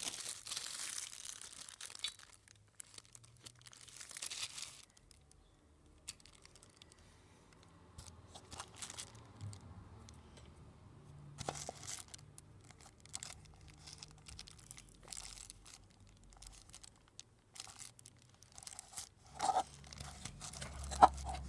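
Crinkling and rustling of craft materials being handled, strongest in the first few seconds, then scattered soft taps and clicks with quiet gaps.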